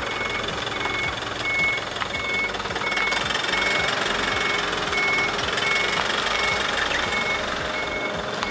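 Mitsubishi Fuso Canter dump truck's reversing alarm beeping steadily in one high tone, a little under two beeps a second, over the running of its 4P10 diesel engine.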